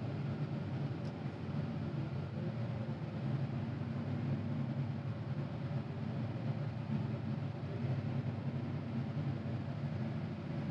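Caterpillar 950GC wheel loader's diesel engine running steadily as the machine drives along pushing snow, heard from inside the cab as a low, even drone.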